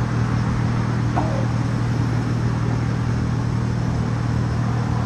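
A steady low hum over constant background noise, with a brief short voice-like sound about a second in.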